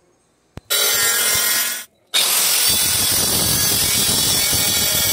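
Handheld electric saw cutting a wooden board to size: it runs for about a second, stops briefly, then starts again about two seconds in and keeps cutting steadily.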